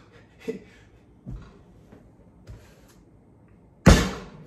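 A single sharp knock near the end that rings briefly, as a hand comes down on a stainless steel pail on the kitchen counter.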